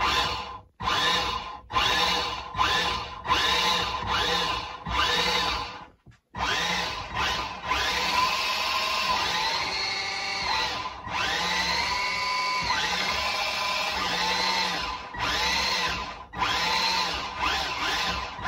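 A featherweight combat robot's two drive motors, run through a 40 A dual-motor ESC, spinning up and down by remote. Several short bursts come first, then two longer runs of about four seconds each, then short bursts again. In each the whine rises as the motors speed up, holds, and falls as they slow.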